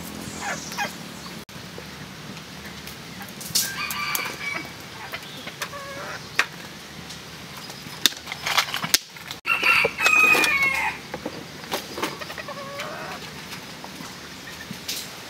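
Rooster crowing twice, a shorter crow about four seconds in and a longer, louder one near ten seconds that drops in pitch at the end, among scattered sharp clicks and knocks.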